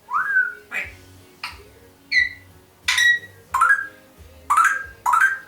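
African grey parrot whistling: a quick series of about eight short whistles, most of them sharp upward sweeps, with a couple held briefly on one high note.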